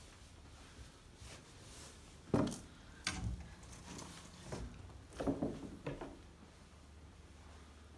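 A few footsteps and scuffs on a debris-strewn carpet, heard as a handful of short, soft knocks over a faint steady background.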